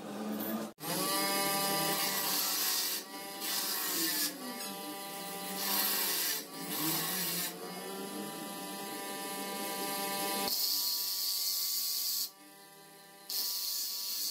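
Electric bench grinder fitted with a cutting disc, its motor whining steadily while the disc cuts into metal in about six separate bursts of harsh grinding noise, each a second or two long.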